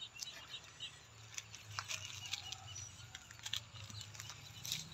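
Quiet greenhouse ambience: scattered faint clicks and ticks with brief high chirps over a low steady hum.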